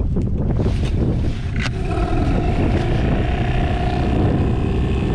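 A small boat's motor running under way, with heavy wind rumble on the microphone; about two seconds in a steady engine whine comes up and holds.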